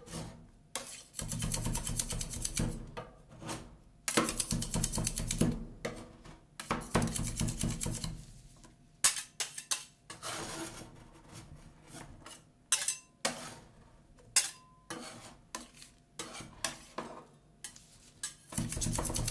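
Two steel spatulas scraping and tapping on a stainless-steel rolled ice cream cold plate, chopping and mixing the green macaron ice cream mixture. The first half is mostly long scrapes; after about eight seconds it turns into sharper, separate taps and short scrapes.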